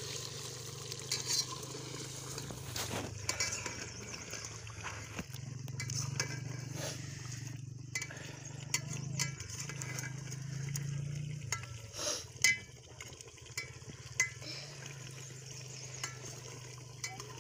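A steel ladle stirs chicken curry in a steel pot, clinking and scraping against the pot's sides. The gravy sizzles and simmers underneath over the wood fire. One sharp clink stands out about twelve seconds in.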